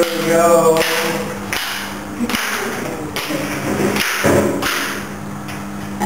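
Footsteps going down marble stairs at a regular pace, a little over one step a second, over a faint steady low hum.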